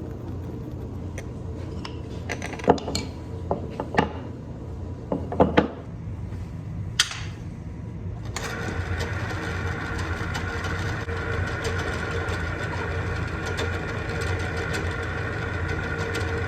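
A few sharp knocks and clicks over a steady low hum, then about eight seconds in a power drill starts and runs steadily, boring through the workbench for the vise's mounting bolts.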